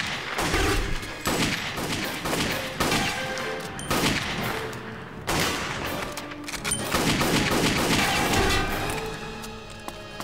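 Shootout gunfire: many gunshots fired in quick succession, several guns trading fire with little pause between shots.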